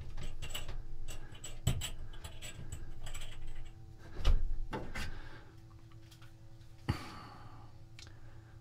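Metal bearing parts clicking and knocking as they are worked by hand into the rear drum hub of a Fisher & Paykel dryer during a main bearing replacement, with one heavier knock about four seconds in. The clicks thin out after about five seconds, leaving a single sharp click near the seven-second mark over a faint steady hum.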